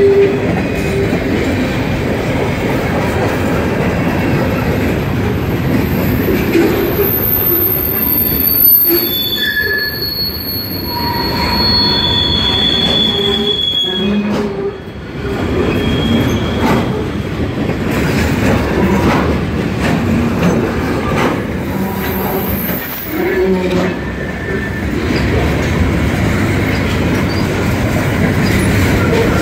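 Mixed freight cars of a CSX manifest train rolling past: a steady rumble of steel wheels on rail, with thin high-pitched wheel squeals coming and going.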